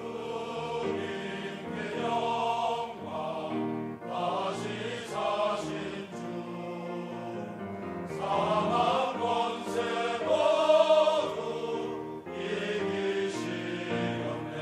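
Church choir singing in parts over a keyboard accompaniment, voices swelling louder a little past the middle.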